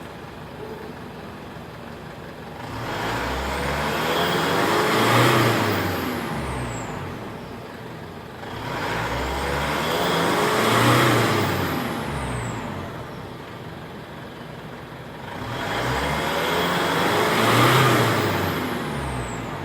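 2016 Mitsubishi Strada's turbocharged DI-D common-rail diesel engine revved up and let fall back to idle three times, each rev lasting several seconds, with a high whine rising and falling along with it. This is a free-rev test for black exhaust smoke.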